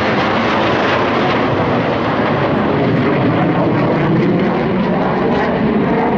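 Loud, steady jet noise of a USAF F-16 Fighting Falcon's single engine as it flies by and banks away overhead.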